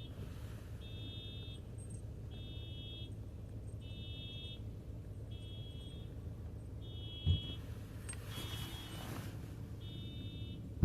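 Car alarm going off, a loud high electronic beep about half a second long repeating roughly once a second. A single low thump about seven seconds in.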